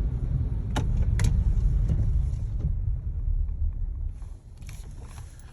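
Low tyre-and-road rumble inside the cabin of a 2025 Kia Telluride rolling over a slushy, snowy road, with two sharp clicks about a second in. The rumble drops away suddenly about four seconds in as the SUV slows to a stop at a red light.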